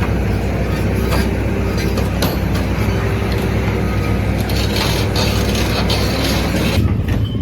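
Heavy diesel construction machinery running steadily, with scattered knocks and clanks. Near the end the higher noise falls away, leaving a deeper engine hum.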